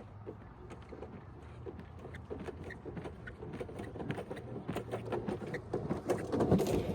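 A quick patter of short impacts from someone sprinting a 40-yard dash toward the microphone, getting steadily louder as they approach.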